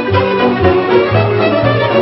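Romanian lăutărească hora played fast on a piano accordion: quick running melody over a repeating bass line.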